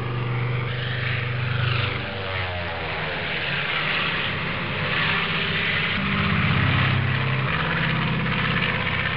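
Hangar 9 Saratoga radio-controlled model airplane in flight, its engine and propeller running steadily; the pitch steps up about six seconds in and drops back about a second and a half later.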